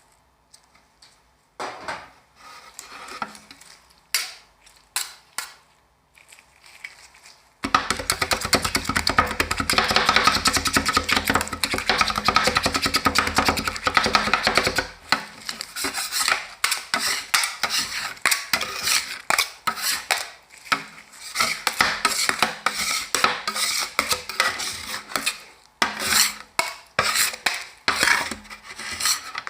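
Metal spatulas striking and scraping on the frozen steel plate of an ice cream roll machine. There are scattered taps at first, then about eight seconds of very rapid, continuous chopping, then slower rhythmic strokes and scrapes.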